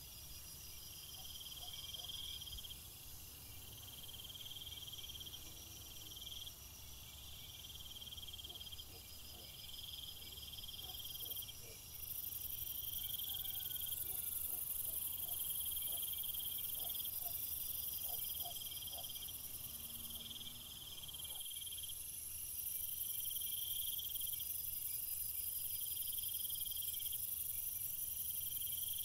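Insects calling: a chirping trill about a second long, repeating every second or two, over a steady high-pitched buzz that grows much louder partway through.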